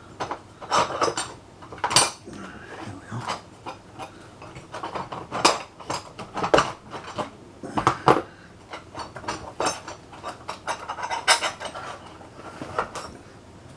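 Steel files clinking and knocking against one another and the desk as they are picked up and handled, in many irregular sharp clatters.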